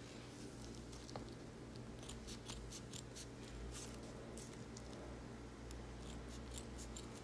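Steel scissors snipping through a sheet of EVA foam, a series of quick, faint cuts one after another as a fringe is cut into the strip.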